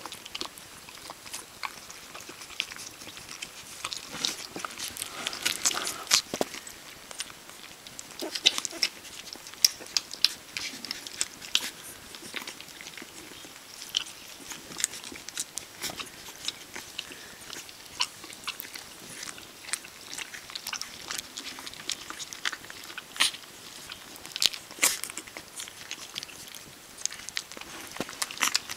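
A German Pinscher puppy eating soft mashed food from a plastic bowl: irregular wet smacking and lapping clicks, some sharper than others.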